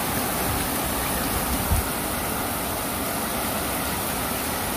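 Heavy rain pouring down on rooftops and streets, a steady rushing hiss with no break.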